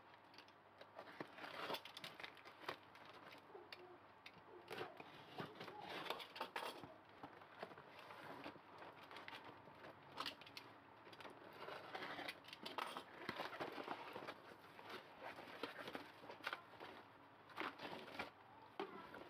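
Packing tape on a cardboard parcel being cut with a box cutter and torn off, the flaps pulled open, then paper packing rustling and crinkling as it is pulled out, with irregular scraping and clicks throughout.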